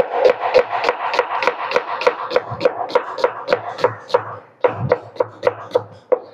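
Kitchen knife slicing red onion against a wooden cutting board: quick, even chopping knocks, about three to four a second, with a short break a little after four seconds before the chopping resumes.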